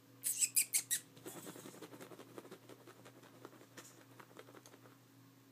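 Sphynx kittens playing on carpet: four quick high squeaks within the first second, then a run of soft, scratchy patter of paws.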